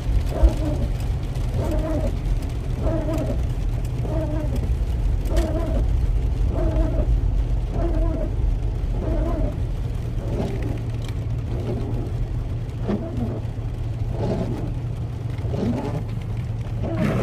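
Car running in the rain, heard from inside the cabin: a steady low engine and road hum, with a short two-note squeak repeating about every two-thirds of a second.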